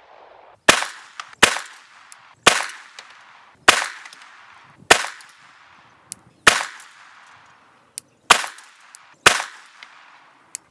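A 9mm Glock pistol with a Tactical Kinetics aftermarket barrel, fired slow and deliberate from a bench rest: eight single shots about one to two seconds apart. Each shot is followed by a short echo that dies away.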